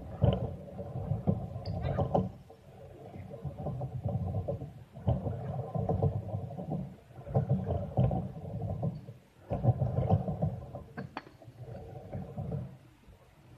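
Kick scooter wheels rolling over concrete skatepark ramps in repeated passes that swell and fade, with a few sharp clacks of deck or wheels hitting the concrete.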